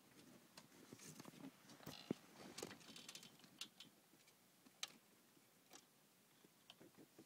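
Near silence broken by faint scattered clicks and taps, with one sharper tap about two seconds in.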